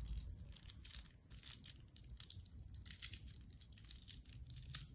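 Faint crinkling and tearing of a small packet of camphor tablets being opened by hand, a scatter of short crackles.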